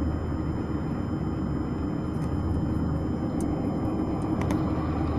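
Steady low rumble of a running vehicle, even throughout.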